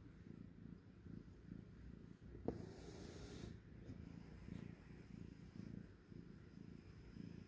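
Domestic cat purring faintly and steadily, very close to the microphone. A short click and about a second of hissing air come about two and a half seconds in.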